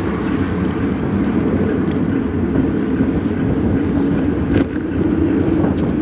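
Steady low rush of wind buffeting a bike-mounted camera's microphone as a mountain bike rolls along asphalt, mixed with tyre noise on the road. A brief click about four and a half seconds in.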